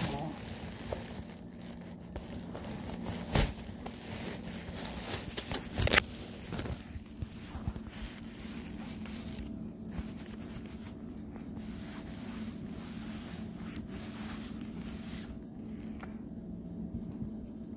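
Plastic packaging crinkling and a person chewing raw cornstarch, with two sharp knocks a few seconds apart, over a steady low hum.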